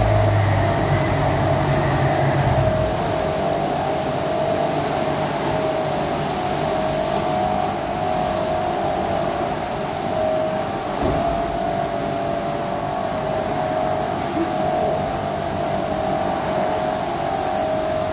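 Mercedes-Benz E55 AMG Kompressor's supercharged V8 idling steadily through a muffler-delete, catless exhaust, a steady drone with a constant high whine above it. The sound echoes in an underground car park.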